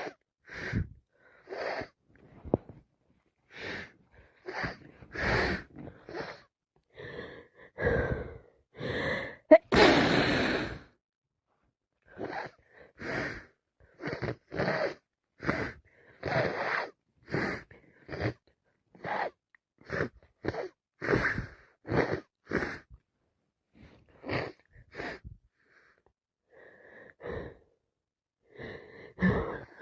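A person sneezing over and over amid sharp, gasping breaths, short bursts coming about once a second, with one louder, longer burst about ten seconds in.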